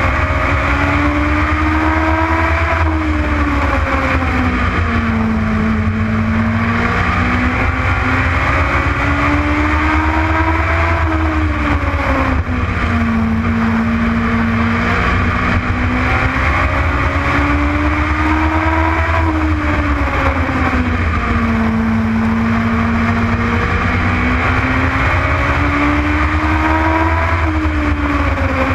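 Legends race car's Yamaha motorcycle engine under racing load on a short oval. Its pitch climbs and falls again in a cycle about every eight seconds as the car accelerates down each straight and lifts for the turns.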